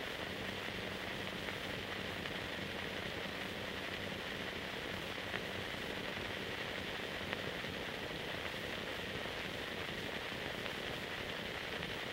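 Steady hiss with a low hum and a faint high whistle: the noise of a silent film transfer, not the scene's own sound. There are two faint ticks around the middle.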